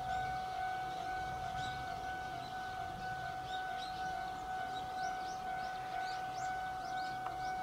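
A steady tone held on one pitch, with overtones above it, while small birds chirp in short rising notes. A faint low rumble comes from a train approaching in the distance.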